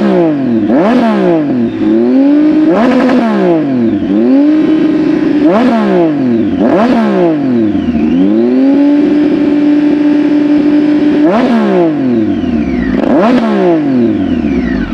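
Triumph Tiger 800's three-cylinder engine revving through a Hurricane Evolution GP aftermarket exhaust: repeated quick throttle blips, each rising and falling sharply, with one rev held steady for a couple of seconds midway.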